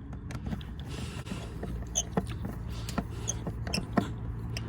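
Light clicks and scrapes of a hand tool tightening a fitting on a car's air filter housing, snugged up but not tightened hard, over a steady low hum.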